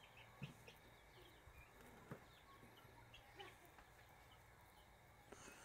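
Near silence: faint birds chirping in the background, with a few soft knocks as tuna pieces are set down in a plastic tub of sugar and salt.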